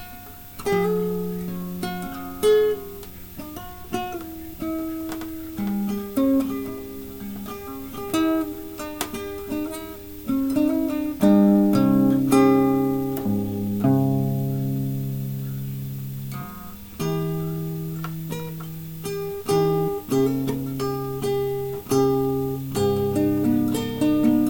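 Acoustic guitar playing an instrumental: single plucked notes ringing over held bass notes, with no singing.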